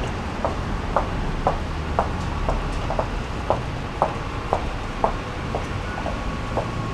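A distant railway level-crossing bell ringing steadily about twice a second, over a low rumble of rail traffic.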